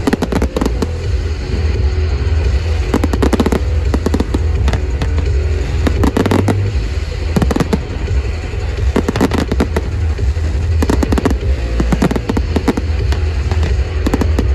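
Aerial firework shells bursting and crackling in repeated clusters of sharp bangs every second or two, over loud music.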